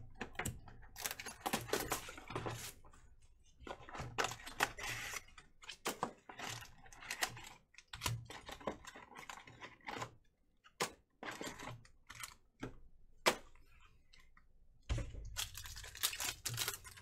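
Handling noise from trading-card packaging: crinkling plastic wrap, cardboard and foil packs rustling, with many irregular clicks and taps as a box is opened and a pack is pulled out and opened.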